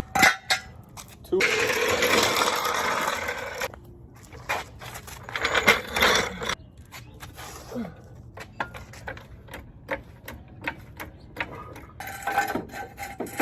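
Scattered clicks, knocks and light metallic scrapes of handling, with a stretch of steady rushing noise from about one to nearly four seconds in.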